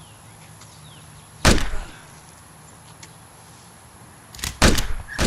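Two gunshot sound effects about three seconds apart, each a sharp bang with a short ringing tail, dubbed in for a finger gun being 'fired'. A small click comes just before the second, louder shot.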